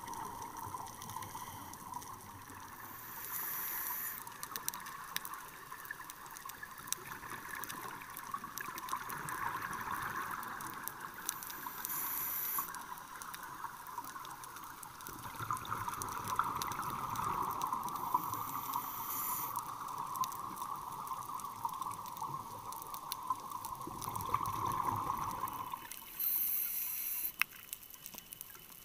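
Underwater sound of a scuba diver breathing through a regulator: a rushing, bubbling stream of exhaled air that swells and fades, and a short hiss of inhalation about every seven or eight seconds. Faint clicks and crackles run throughout.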